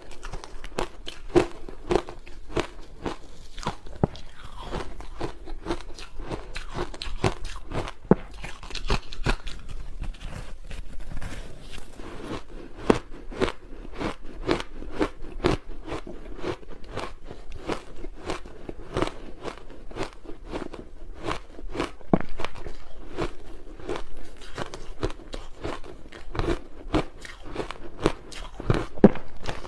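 Close-miked biting and chewing of hard ice chunks coated in matcha powder: a continuous run of crisp crunches, about two to three a second.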